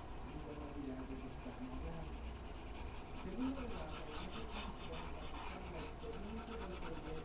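Pencil scratching on paper in rapid back-and-forth shading strokes, clearest in the middle of the stretch.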